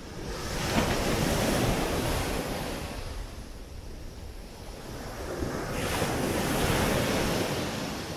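Ocean surf breaking and washing up a sandy beach in two swells, one building about half a second in and the next about five and a half seconds in, each rising and then fading. Wind buffets the microphone.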